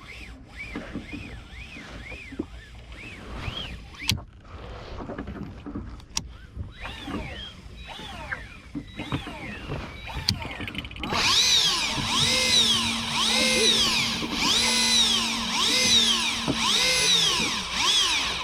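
Electric fishing reel motor whining as it winds in line, its pitch rising and falling about once a second. It is faint at first and much louder from about two-thirds of the way in.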